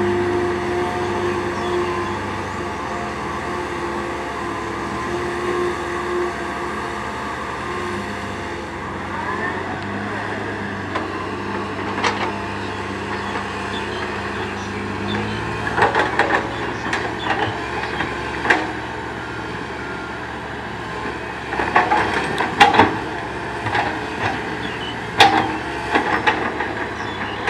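Komatsu PC130 hydraulic excavator's diesel engine running steadily while it digs, its engine note dropping about halfway through. In the second half come scattered sharp knocks and clanks as the steel bucket works soil and rock.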